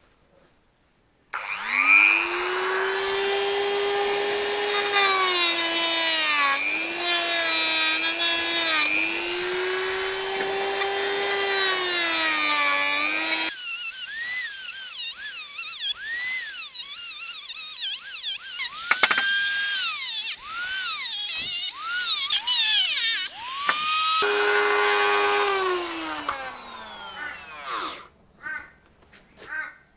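Electric angle grinder grinding the galvanised coating off a steel jockey-wheel frame to prepare it for welding. It spins up about a second in and runs with a steady whine whose pitch sags and recovers each time the disc is pressed onto the metal. It stops around the middle, a higher whine swoops up and down for a while, and it runs again briefly before winding down near the end.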